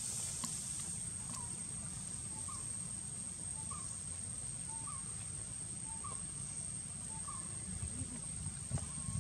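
Outdoor ambience: a steady high-pitched insect drone, with soft short chirps repeating about once a second and a low rumble underneath.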